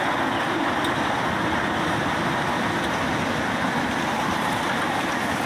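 Steady rumbling noise of a ride-on miniature railway train running along its track, heard from aboard.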